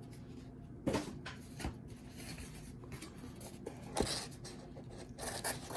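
Pocket knife blade cutting through cardboard: faint scratchy cutting and scraping, with a few sharp ticks about one and four seconds in and a quicker run of cutting strokes near the end.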